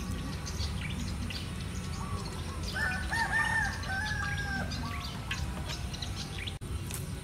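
A rooster crows once, a drawn-out call of about two seconds starting about three seconds in. Scattered small ticks and chirps and a steady low rumble run underneath.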